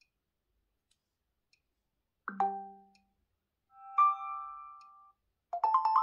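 OnePlus 9 Pro preset ringtones playing: after a couple of seconds of near silence, a single bright chime note, then a short swelling chord of sustained tones, and near the end a quick run of plucked, marimba-like notes.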